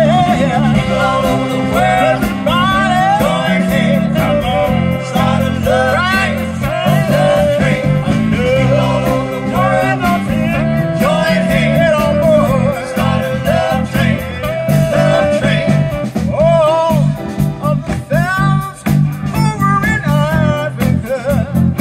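A live band playing a soul song through PA speakers: several singers over electric guitar, bass guitar, keyboard and drums, with a steady beat.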